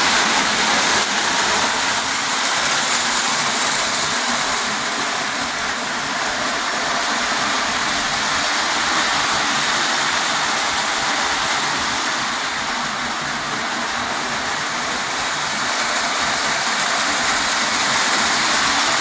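Lionel post-war tinplate model trains, steam locomotives pulling passenger cars, running on three-rail track: a steady rolling rumble of wheels and motors that swells and eases slightly as trains pass.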